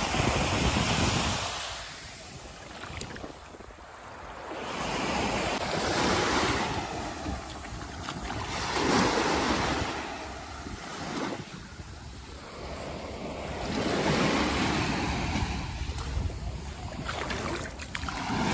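Small waves breaking and washing up onto a sandy beach, swelling and fading every few seconds, with wind rumbling on the microphone.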